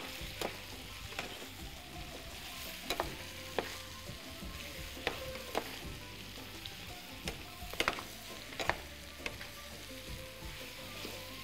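Prawns and sliced onions sizzling as they fry in a metal pan over a gas flame, being stirred and turned with a slotted metal spoon and a wooden spoon, with irregular clinks of the spoon against the pan. The prawns are frying in the ginger-garlic and onion base on medium heat until they change colour.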